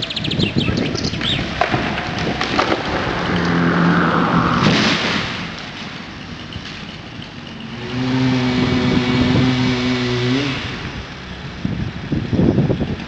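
An engine running at a steady pitch in two spells, the second ending with a short rise in pitch, over wind rumble on the microphone.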